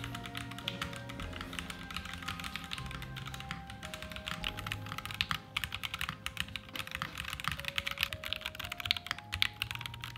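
Continuous fast typing on a Stella80 mechanical keyboard with 西柚软糖 (Grapefruit Soft Candy) switches and MW Love Story keycaps, built with no switch pads and no case foam: a rapid stream of key clicks. Soft background music plays underneath.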